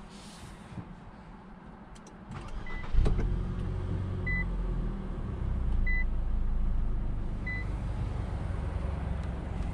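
2021 Infiniti QX50's 2.0-litre VC-Turbo four-cylinder engine starting about three seconds in and then idling, the revs rising for a moment and settling back. A short high dashboard chime sounds four times, about every second and a half.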